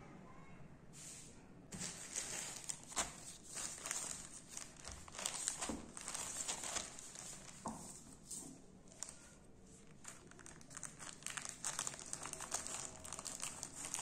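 Plastic courier mailer bag crinkling and rustling as it is handled, with scissors snipping into the plastic near the end.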